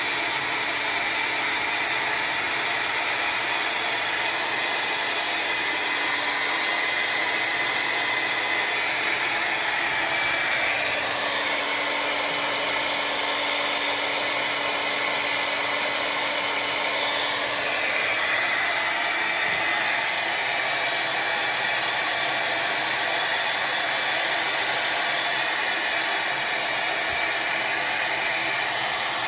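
Revlon handheld hair dryer running steadily on its cool setting: a constant rush of blown air with a faint hum, its tone shifting a little now and then as it is moved about.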